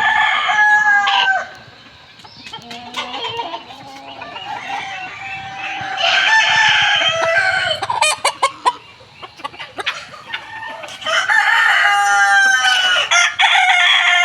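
Chickens on a poultry farm: roosters crowing in three long bouts, at the start, about six seconds in and from about eleven seconds on, with hens clucking in between.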